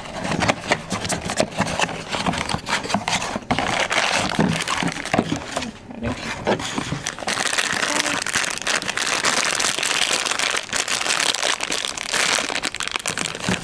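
Funko Mystery Minis blind box being unpacked by hand: cardboard sliding and scraping as the insert is pulled out, then the shiny black foil bag inside crinkling and crackling as it is handled and torn open, densest in the second half.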